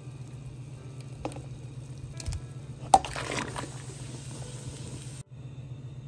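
A pot of chicken broth bubbling at the boil. About three seconds in comes a sharp clink and a short splash as raw chicken pieces are tipped from a bowl into the broth. The sound drops out briefly near the end.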